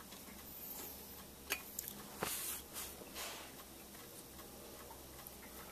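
Handling noises from a small brass model steam locomotive being worked on: a few sharp clicks and knocks with a short rustle around two seconds in, over faint steady ticking.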